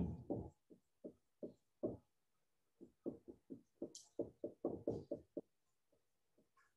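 Dry-erase marker knocking and stroking against a whiteboard as words are written: a run of faint short knocks, coming several a second from about three seconds in, with a brief higher scrape around four seconds, stopping about five and a half seconds in.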